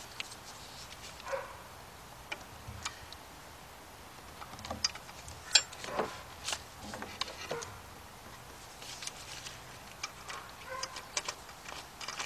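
Scattered, irregular light clicks and clinks of a socket on a 3/8-inch drive extension knocking against engine parts as a bolt is guided down into a hard-to-reach hole. The sharpest clink comes about five and a half seconds in.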